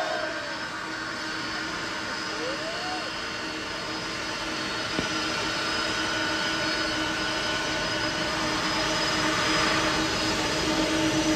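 Boeing 747-400 jumbo jet taxiing, its four jet engines running with a steady whine over a broad rush that grows louder near the end as the aircraft comes closer. A short whistle is heard about two and a half seconds in.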